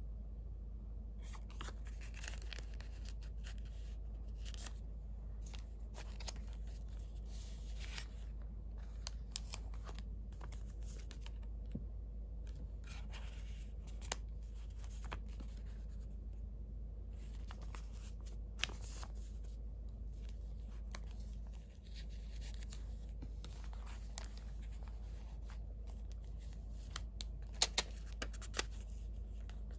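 Paper being handled in a handmade junk journal: cards and paper tags are slid against the pages and lifted out of paper pockets, making soft rustles and scratches with scattered light taps. A few sharper clicks come near the end, over a steady low hum.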